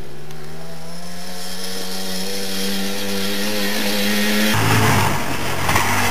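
Suzuki JR50 kids' dirt bike, a small single-cylinder two-stroke, running under throttle with its engine note rising slowly. About four and a half seconds in, the sound turns louder and rougher as the bike comes up close.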